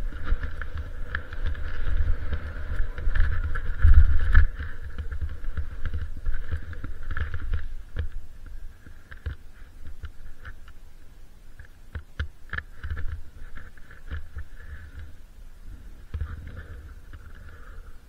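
Ogso Spencer freeride skis sliding and scraping over snow, with wind buffeting the camera microphone as a low rumble. The rushing is loudest for the first eight seconds and eases off as the skier slows.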